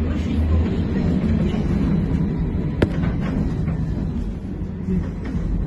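Inside a moving Trolza-5275.06 Optima trolleybus: a steady low rumble of the running bus, with a single sharp knock about three seconds in.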